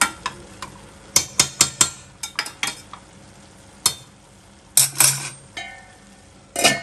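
A spatula stirring greens and lentils in a kadai, with a run of sharp clicks and scrapes against the pan, the loudest just before the middle and near the end.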